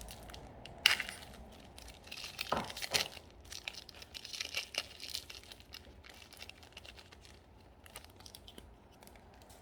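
A Panini Prizm football card pack's foil wrapper being torn open and crinkled by hand. There is a sharp snap about a second in, then bursts of crinkling that fade out near the end.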